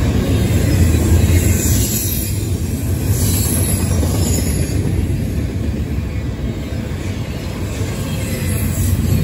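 Double-stack intermodal train's well cars passing close by: a continuous rumble and clatter of steel wheels on rail, easing slightly midway and rising again near the end.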